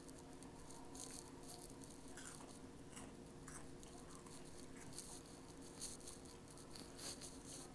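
Faint crunching and chewing of crunchy spicy red chips, a scattered string of short crisp crunches over a steady low hum.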